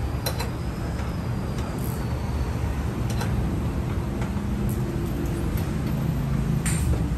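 Minivan engine idling steadily under its open bonnet, a low even hum, with a few light clicks from tools now and then.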